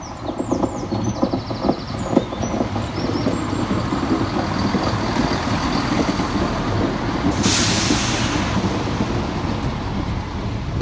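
East Midlands Railway Class 170 Turbostar diesel multiple unit arriving and rolling slowly past, its underfloor diesel engines and wheels on the rails rumbling steadily. A little after halfway comes a sharp air-brake hiss lasting about a second.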